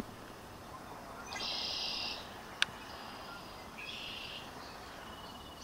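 Two short, buzzy trilled animal calls, high in pitch, about two seconds apart, with a single sharp click between them.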